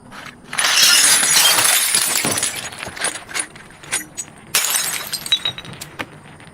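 Glass bottle shattering and crunching in two long bursts, the first about half a second in and the second about four and a half seconds in, with scattered clinks of glass between them.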